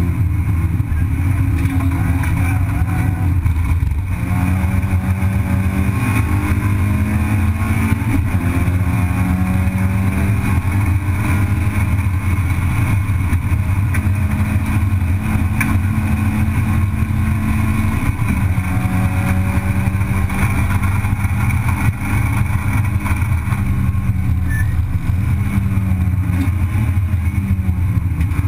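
Racing car's engine heard from inside the cabin, running hard at high revs. The note holds steady for a few seconds at a time, breaking briefly about every four seconds, over steady road and wind noise.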